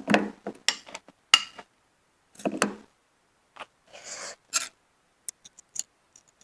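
Close-miked shellfish eating: a string of sharp clicks and crackles from snail and oyster shells being handled and bitten, with a short hissing suck about four seconds in.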